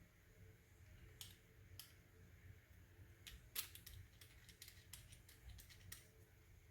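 Faint, scattered clicks and taps of small objects being handled over a quiet room hum. There are a couple in the first two seconds and a bunch from about three and a half seconds on, the loudest just after three and a half seconds.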